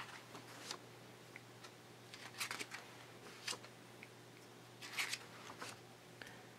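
Paper pages of a printed catalog being turned and handled: a handful of short, faint rustles and flaps, with a low steady hum underneath.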